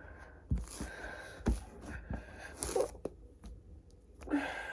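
Slime being played with in the hands: a handful of soft clicks and small squishing, sticky sounds, spread out with short pauses between them.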